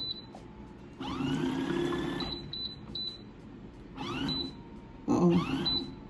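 Small portable washing machine starting up: its motor spins up in short runs with a rising whine, the longest about a second in and shorter ones about four and five seconds in, between them several short high beeps from its control panel.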